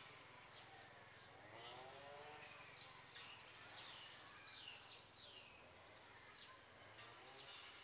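Faint forest birdsong: short high chirps and several falling whistled notes, with a lower drawn-out call that rises and falls about two seconds in.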